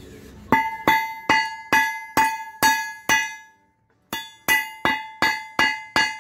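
Hammer striking steel in a steady rhythm of about two and a half blows a second, each blow leaving a bright metallic ring. Seven blows, a pause of about a second, then six more.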